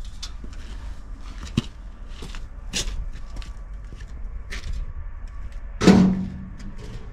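Footsteps on wet dirt with scattered light clicks and knocks, and one loud thump with a short low ring about six seconds in.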